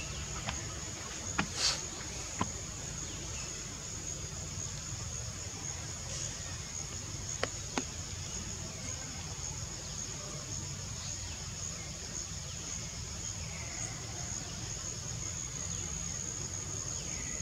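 Steady high-pitched droning of insects, over a low steady rumble. A few sharp clicks stand out, several in the first three seconds and two more about halfway through.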